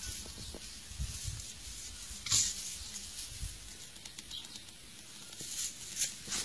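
A dog and kitten scuffling in grass: faint rustling and soft thumps, with a short hissy burst about two seconds in.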